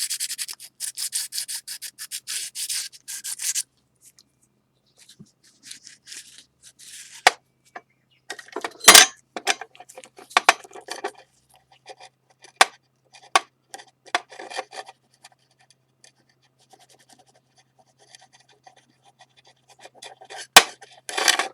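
Sandpaper rubbing on a ceramic plate to clean excess lacquer off a kintsugi repair: quick, even back-and-forth strokes for the first few seconds. Then scattered short scrapes and rubs with a few sharp clicks of the plate or tool, the loudest about 9 s in and near the end.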